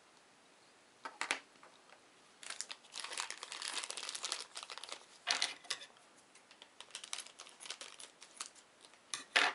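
Thin plastic bag crinkling and crackling as it is handled and opened, in irregular bursts that start about a second in and are busiest in the middle.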